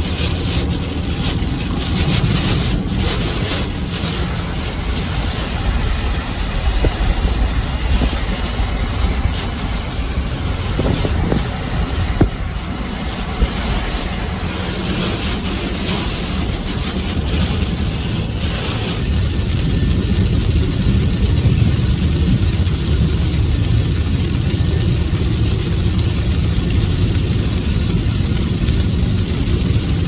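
Heavy rain and strong wind beating on a car driving through a severe thunderstorm, heard from inside the cabin: a loud, steady rushing over a deep rumble, with a few sharp knocks in the first few seconds. The higher hiss of the rain thins out about two-thirds of the way through.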